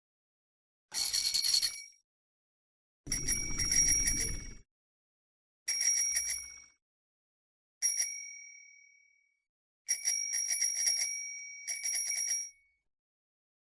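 A small bell, likely a bicycle-type bell, rung in six short separate bursts: mostly rapid trilling rings, with one single ring dying away about eight seconds in. A low rumble sounds under the second burst.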